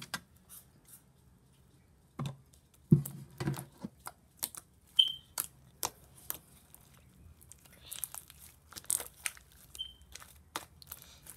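Sticky homemade glue slime being kneaded and pressed by hand on a desk: irregular crackling pops as it pulls off the hand and surface, with a few heavier thumps about two to three and a half seconds in.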